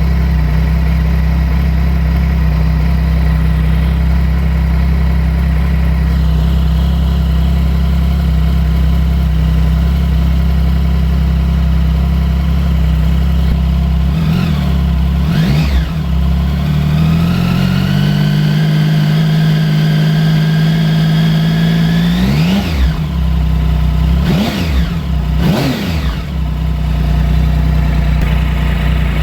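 Triumph Sprint ST 1050's three-cylinder engine idling steadily, with a couple of quick throttle blips about halfway through, then revs held raised and steady for several seconds, then three more sharp blips before it settles back to idle.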